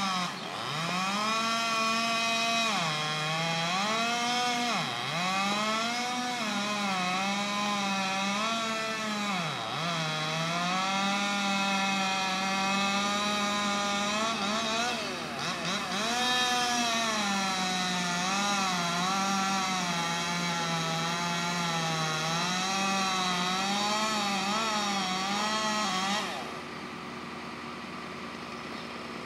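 Gas chainsaw running at high revs while cutting wood, its pitch sagging and recovering again and again as the chain bites and frees. It cuts off about 26 seconds in, leaving a quieter steady engine hum.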